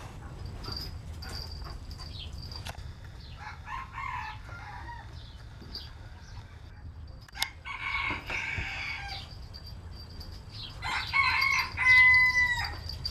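Rhodesian Ridgeback making high-pitched whining calls while playing on its back, in three bouts, the last and loudest near the end.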